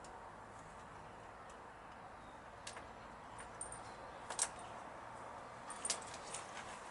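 A few light, sharp clicks and taps of small metal parts being handled during bench work, over a faint steady hiss; the clearest come about four and a half and six seconds in.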